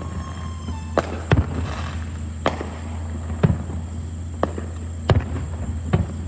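Fireworks going off in a series of sharp bangs, about seven in six seconds at uneven intervals, over a steady low hum. A faint falling whistle sounds in the first second.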